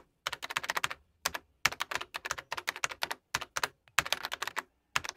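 Rapid runs of sharp clicks, several a second, broken by short pauses, as of keys being typed.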